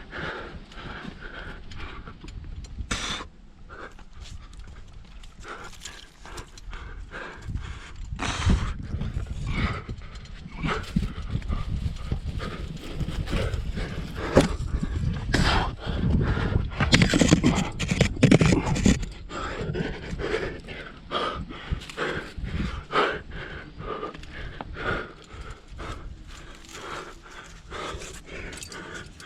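A rock climber in a chimney, close to the microphone: hard breathing mixed with repeated knocks, clinks and scrapes of gear and body against the rock. The busiest stretch is a little past the middle.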